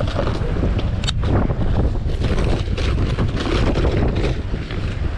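Wind buffeting the microphone: a steady low rumble with gusty noise over it, and a sharp click about a second in.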